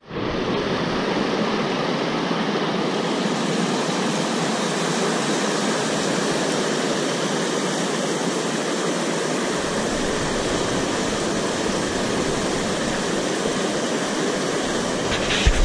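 Steady rushing noise of water and wind on the microphone, with a louder burst of low rumble near the end.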